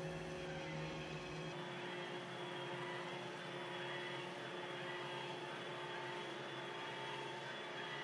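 iRobot Roomba i2 robot vacuum running on carpet: a steady whir from its motors with a few held tones. The deep rumble under it drops away about a second and a half in.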